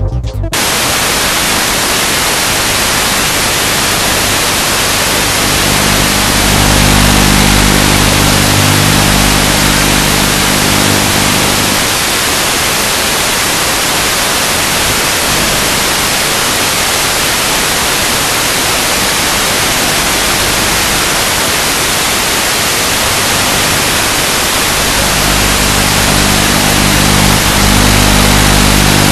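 Steady loud hiss of radio static from an analog FPV video link's audio channel. A low hum of several steady tones comes in a few seconds in, fades out around the middle and returns near the end.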